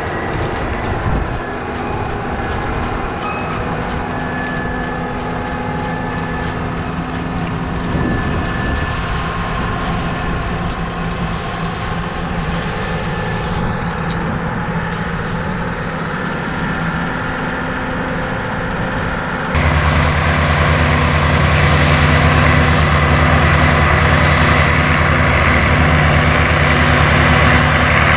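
Cat Challenger 55 tracked tractor's Caterpillar 3126 diesel engine running steadily under load while pulling a disk harrow and packer through the soil. It gets abruptly louder and deeper about two-thirds of the way through.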